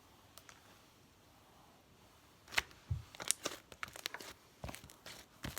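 Quiet for the first couple of seconds, then slime being stretched and pulled, giving a quick run of sharp crackles and pops.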